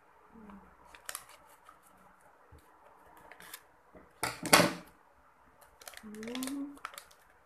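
Scissors snipping through the top of a plastic face-mask sachet: scattered sharp blade clicks, with one loud crinkle of the packet about halfway through.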